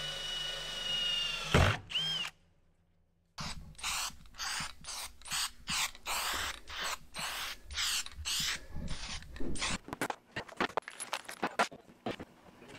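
Cordless drill boring a hole in a fifth-wheel plate, running steadily and then stopping with a loud knock about one and a half seconds in. After a short gap comes a long run of quick, evenly spaced mechanical strokes, about two or three a second, then scattered clicks and knocks of parts being handled.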